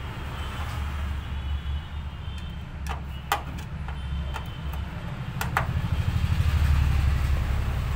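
Steady low hum with about six sharp metallic clicks in the middle, as a nut driver turns a nut on a copier's pickup-unit frame.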